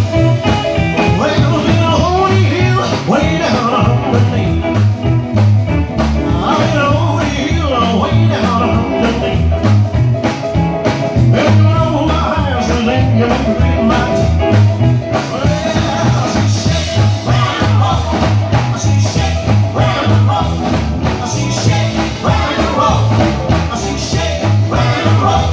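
Live rock and roll band: a man singing with an acoustic guitar, backed by electric bass and drums, the bass pulsing in a steady beat.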